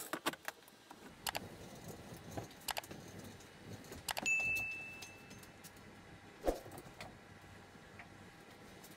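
Scattered light metal clanks and rattles as a wheeled steel rack is pulled out of a powder-coating oven, the hung metal engine tins jingling on their hooks. A short ringing ding about four seconds in and a single knock a couple of seconds later.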